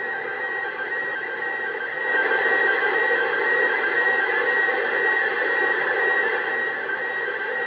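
Open-squelch 2-metre FM receiver on 145.800 MHz giving out a steady static hiss, with a weak slow-scan TV picture signal from the International Space Station faintly repeating underneath it. The hiss grows louder about two seconds in.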